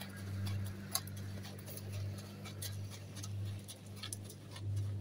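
A horse's hooves stepping at a walk on a sandy gravel path: light, irregular clicks over a steady low hum.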